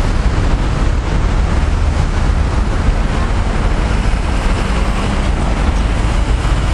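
Steady city street traffic noise from cars driving past, mixed with a low rumble of wind on the microphone.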